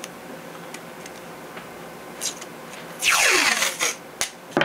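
Masking tape being pulled off the roll: a loud ripping peel about three seconds in, lasting most of a second, after a few light handling clicks, with another pull starting near the end.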